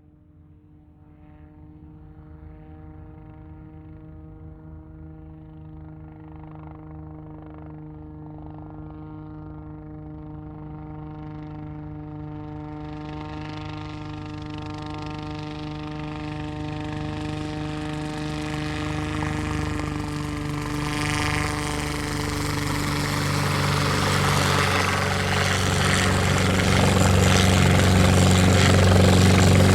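Helicopter approaching, growing steadily louder from faint to loud: a steady whine with a rhythmic rotor chop beneath it.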